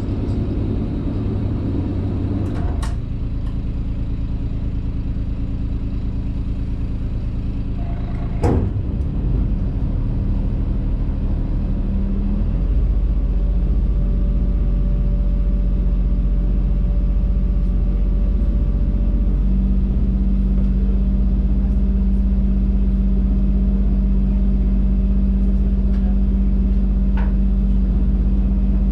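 Tour boat's engine running steadily with a low hum, getting louder about twelve seconds in. A sharp knock cuts through it about eight seconds in.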